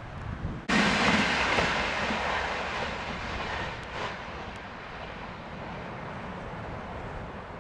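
Train passing at speed: a loud rush of wheel-on-rail noise that starts abruptly about a second in and dies away over the next few seconds, leaving a fainter steady rumble.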